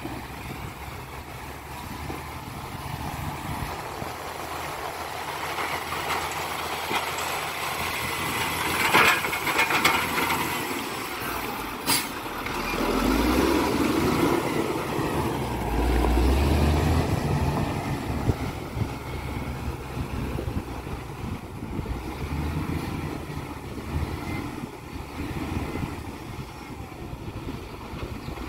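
Caterpillar 120K motor grader's diesel engine running as the machine drives past close by, growing louder to a peak around the middle and easing off after. A single sharp click about 12 seconds in.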